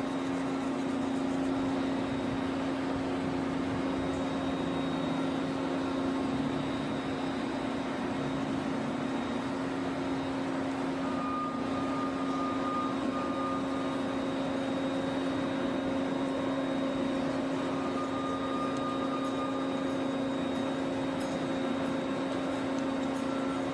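Steady machine hum with a constant low tone, and a short higher whine twice in the middle.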